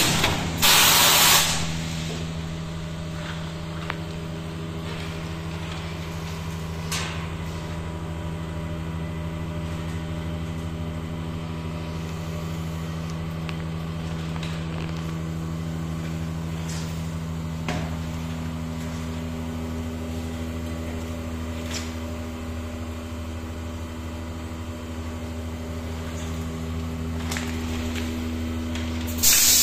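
Plastic tray thermoforming machine running with a steady, even hum. Short, loud hissing blasts of compressed air come about a second in and again at the very end, with a few light clicks in between.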